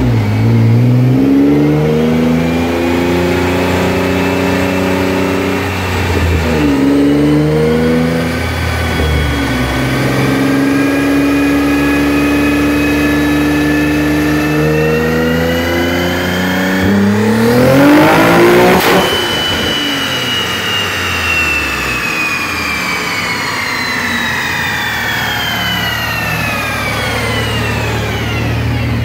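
Twin-turbocharged Nissan 370Z Nismo's 3.7-litre V6 making a dyno pull: the revs climb in steps, as through the gears, to a peak about two-thirds of the way in. The engine then drops back to idle under a high whine that falls slowly as the wheels and rollers spin down.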